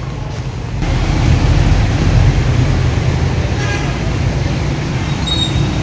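Steady low vehicle engine rumble with street traffic noise, growing louder about a second in.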